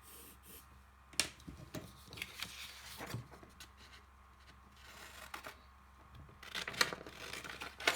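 Sheets of paper being handled: rustling and crinkling, with a few sharp taps and clicks about a second in, around three seconds in, and in a busier cluster near the end.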